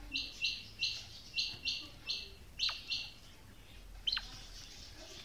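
Female quail calling: a quick run of short, high notes, mostly in pairs, over about three seconds, with a sharp falling note twice and fainter calls near the end.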